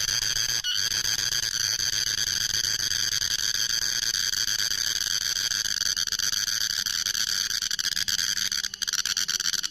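Cicadas buzzing in a steady, continuous high-pitched chorus with a fine rapid pulse, dropping out briefly a little before the end.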